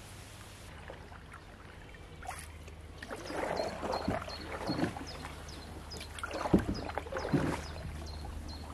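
Wooden canoe paddle strokes: the blade dipping and pulling through the water with splashes and drips, several strokes starting about two seconds in, a few of them sharper and louder.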